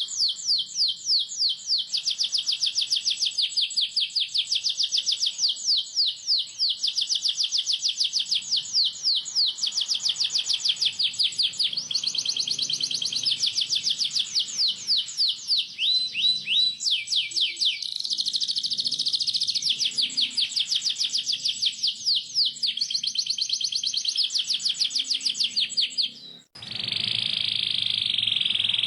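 Domestic canary singing a long run of rapidly repeated chirps and rolling trills. Near the end the song breaks off for a moment and resumes as a denser, steadier trill.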